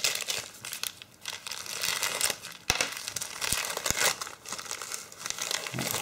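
Plastic packaging wrap crinkling and rustling as it is handled and unwrapped by hand, with a sharp click about halfway through.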